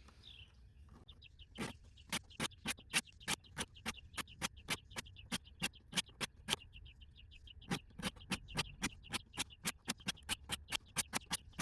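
Stainless knife blade being stroked across a 200-grit diamond sharpening stone, short scraping strokes about three a second, evening out a wavy edge.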